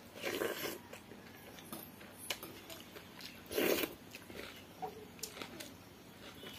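Close-up eating sounds of a person eating pakhala bhata (rice in water) with potato fry by hand: chewing, with two louder mouthfuls, one right at the start and one just past the middle, and light clicks between.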